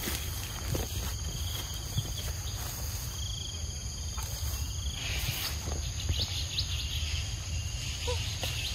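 Outdoor insect chorus: a steady high-pitched drone with a pulsed, cricket-like trill that stops about five seconds in, over a constant low rumble. A few short falling calls come near the end.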